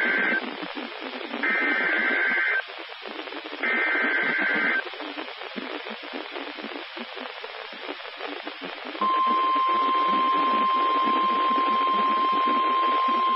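Weather radio Emergency Alert System broadcast: three bursts of SAME digital header data, each a buzzing two-tone screech about a second long and a second apart, over radio static hiss. About nine seconds in, the steady 1050 Hz NOAA Weather Radio warning alarm tone begins and holds.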